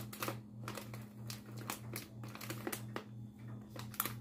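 Plastic chip bag crinkling in short, irregular crackles as it is handled and crimped along its top edge with a handheld mini heat sealer. A low steady hum runs underneath.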